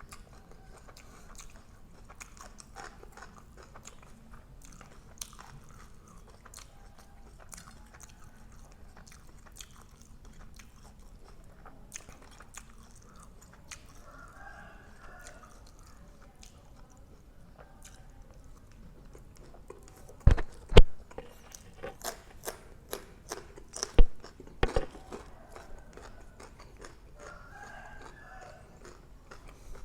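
A person chewing and biting into grilled pork neck salad (nam tok), with steady small wet mouth clicks. About two-thirds of the way through come a few sharp, loud knocks.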